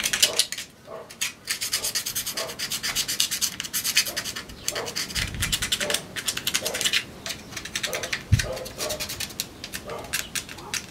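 A knife blade scraping grime off a Ford Sierra five-speed gearbox casing by hand, in quick repeated strokes with short pauses. Two dull thumps come about five and eight seconds in.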